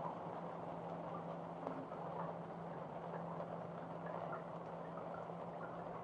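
Steady rain falling, with small drips and splashes scattered through it, over a low steady hum.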